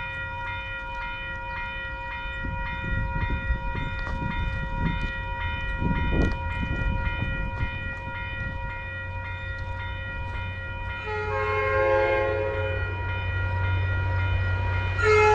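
Grade-crossing bell ringing at about two strikes a second while a commuter train's rumble grows louder. About two-thirds of the way in the MBTA cab car's horn starts sounding in uneven, broken notes, with a louder blast near the end: the horn is fouled, not giving a clean chord.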